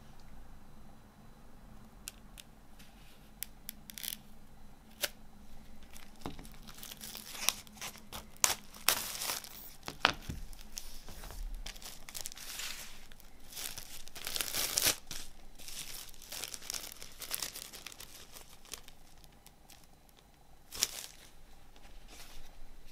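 Clear plastic shrink-wrap on a CD case being slit with a folding knife and peeled off: crinkling and tearing film with sharp crackles, in uneven bursts that are loudest around the middle.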